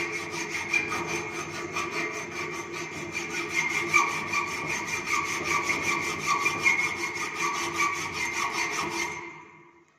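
Hand hacksaw cutting through a mild-steel flat held in a bench vice: rapid, even rasping strokes over a steady metallic ringing tone. The sawing stops about nine seconds in.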